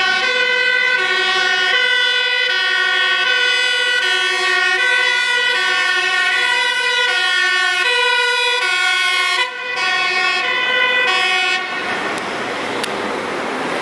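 Two-tone siren of Dutch fire service command trucks on an emergency run, alternating between a high and a low note about every three-quarters of a second. About two seconds before the end the siren stops, leaving road traffic noise.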